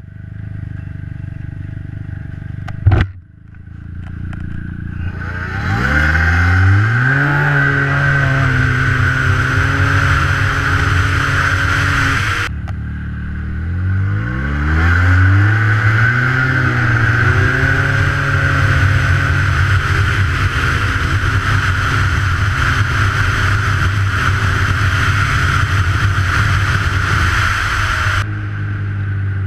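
A sharp loud click, then an engine accelerating hard from idle and settling into a steady high-speed run. The sound cuts off abruptly, and the engine accelerates hard again to a steady high-speed run.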